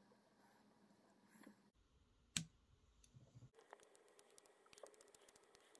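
Near silence with faint small clicks of fly-tying tools and thread being handled at the vice, and one sharp click about two and a half seconds in.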